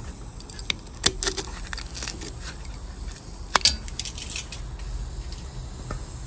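A knife cutting into foam pipe insulation: a run of sharp crackling snaps and scrapes, loudest about a second in and again about three and a half seconds in.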